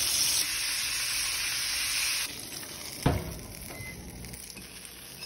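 Breaded haddock fillets frying in hot oil in a cast-iron skillet: a steady sizzle that stops about two seconds in. A single thump follows about a second later.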